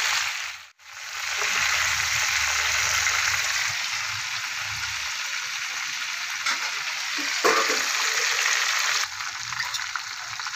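Hot oil sizzling steadily around marinated chicken pieces shallow-frying in a pan. The sound cuts out briefly about a second in, there is a single knock about three-quarters of the way through, and the sizzle drops a little in level near the end.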